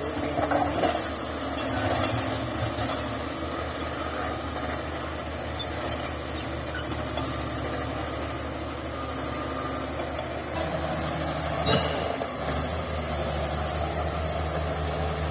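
Shantui bulldozer's diesel engine running steadily, with a thin high whine over it. About twelve seconds in there is a sharp knock, and after it the engine's low drone grows louder.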